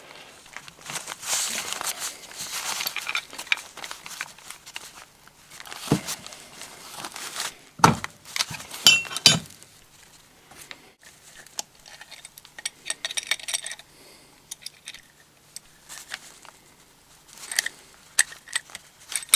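Metal tools clinking, scraping and knocking against a brass tap as its seized top is worked loose, with a few sharper metallic knocks near the middle, one of them briefly ringing.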